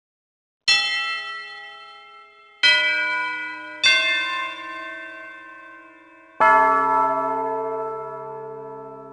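Bells struck four times at uneven intervals, each stroke ringing out and slowly fading; the fourth, deepest stroke rings longest.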